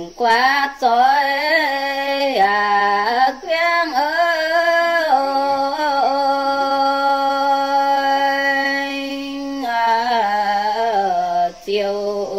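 A woman singing a Red Dao (Iu Mien) folk song unaccompanied, in long drawn-out phrases with ornamented, wavering pitch. A long steady note falls in the middle, and short breaks between phrases come early and again near the end.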